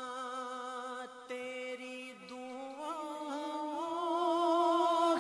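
A long held note in an unaccompanied naat recitation, a male voice sustained with a slight wavering vibrato; about halfway through it steps up in pitch and grows louder.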